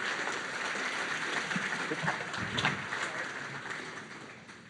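Audience applauding, the clapping steady at first and fading out near the end.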